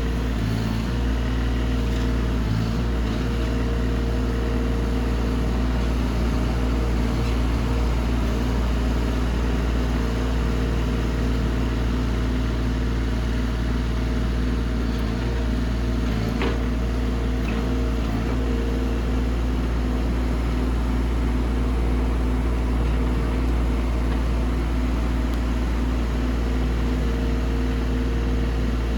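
Mini excavator's diesel engine running steadily at an even speed, with an occasional faint clank.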